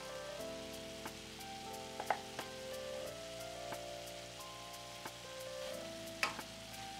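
Soft background music of slow-changing sustained chords with a light ticking beat, over a steady crackling hiss. There are sharp clicks about two seconds in and again about six seconds in.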